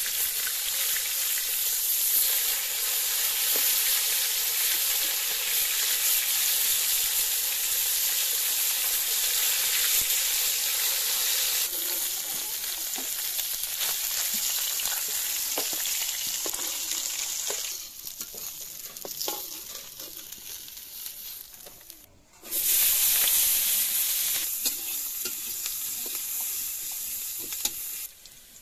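Pieces of snakehead fish sizzling as they fry in hot oil in a steel wok, with the steel spatula clicking and scraping against the pan as they are turned. The sizzle thins out about two-thirds of the way in, stops for a moment, then comes back loud.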